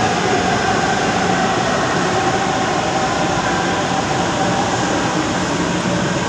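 Manila LRT Line 1 3G (1200-class) light-rail train running past at close range on the elevated track: a steady rumble and rush of wheels on rail with a faint steady whine through it.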